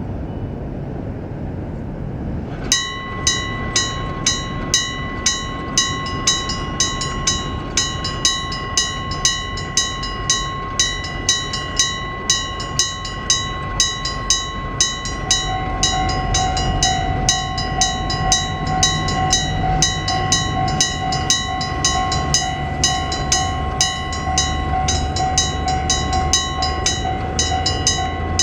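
A Nippon Signal EG1003 AC electric bell at a railway level crossing starts ringing suddenly about three seconds in and keeps up a rapid, regular clanging, the crossing's warning that a train is coming. About halfway through, a train's low rumble and a steady whine rise beneath the bell.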